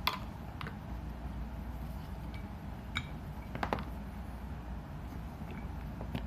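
Handling of a soldering iron and its packaging: a handful of light clicks and taps, with a quick cluster of clicks about three and a half seconds in, over a low steady hum.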